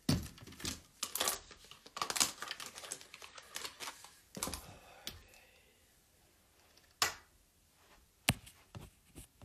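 Handling noise from a phone being gripped and repositioned close to its microphone: irregular rubbing and clicks with sharp knocks at the start, about two seconds in, and again near four and a half, seven and eight seconds.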